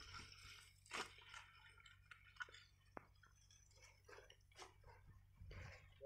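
Near silence with faint, scattered crunching of dry soil under a wooden plank leveller drawn by a pair of bullocks, and a sharper click about a second in and again near three seconds.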